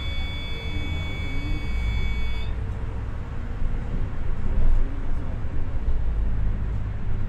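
Volvo Caio Procity city bus running, a steady low engine and road rumble, with a high electronic buzzer sounding for about two and a half seconds at the start and then cutting off.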